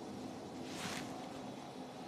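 Steady low hum of operating-room equipment, with a brief hiss about three-quarters of a second in.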